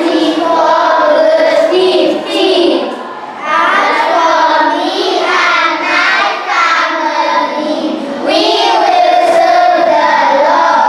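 Children singing, with held notes and short breaks between lines.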